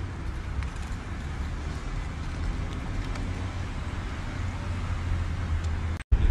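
Street traffic ambience: a steady low rumble of passing cars. The sound drops out briefly near the end.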